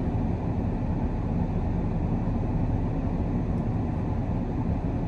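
Steady low road and engine drone heard inside the cab of a tow truck on the move.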